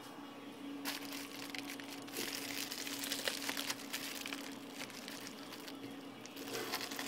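Plastic poly mailer envelope crinkling and crackling as it is handled and slit open with a folding pocket knife, starting about a second in, over a steady low hum.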